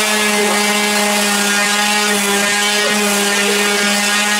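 Corded electric palm sander running steadily at one even pitch while it is pressed against the rounded edge of an oak bar top and sanded.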